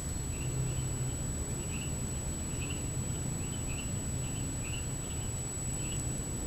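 Short chirps from a small calling animal repeat about once or twice a second over a steady low hiss, with a thin, steady high-pitched electronic whine throughout.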